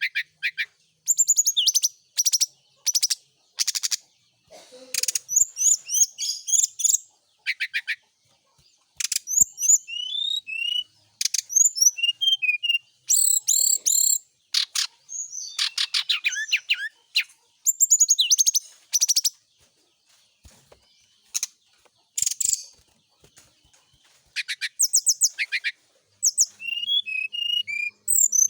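Brown-chested jungle flycatcher singing in repeated bursts of rapid, high trills and quick twittering phrases, with short pauses between them.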